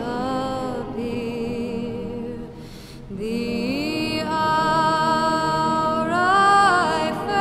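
Slow background music with long held notes that glide from one pitch to the next, dipping briefly in loudness about halfway through.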